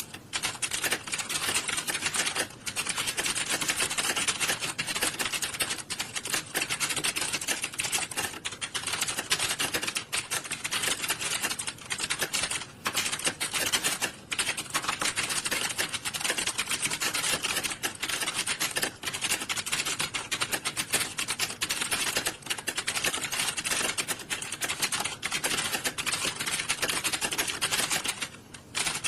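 Fast, continuous typing on computer keyboards, the key clicks running together into a dense clatter. It breaks off briefly a few times, with the longest gap near the end.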